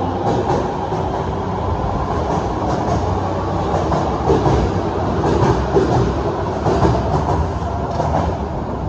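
Osaka Metro 66 series subway train running out of the station at speed, its wheels clattering over the rail joints with a steady rumble as the cars go by. The last car passes near the end.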